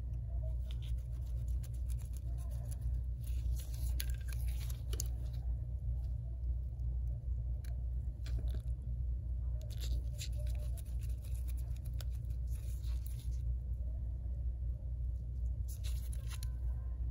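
A small precision screwdriver clicking and scraping in short spells as it drives tiny screws into the metal back plate of an iPhone 8 Plus screen, over a steady low hum.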